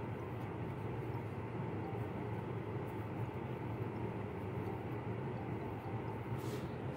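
Steady low background hum with a hiss, and a brief soft rustle near the end.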